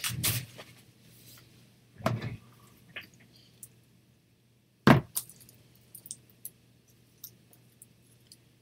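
Craft materials being handled on a tabletop: rustling and light clicks and taps, with one sharp knock about five seconds in and a few small ticks after it.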